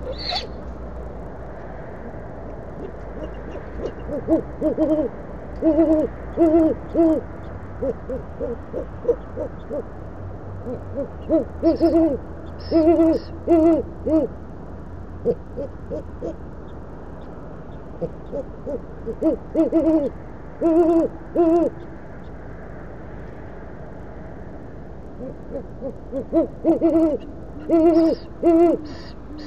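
A pair of great horned owls hooting back and forth: the nesting female and the male calling in turn. There are four bouts of several deep hoots each, over a steady low background hum.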